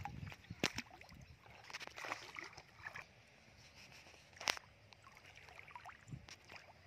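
Bare feet wading and sloshing through shallow muddy water, with a few sharp knocks or splashes, the loudest about four and a half seconds in.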